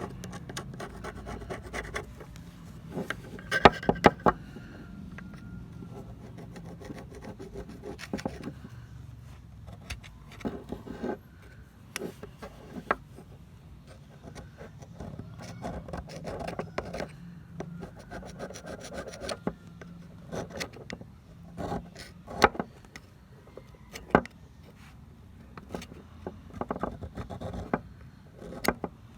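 Scraping and rubbing strokes by hand on an old pair of pliers, typical of filing or sanding off rust. They come in irregular runs, with a few sharp clicks of tool on metal.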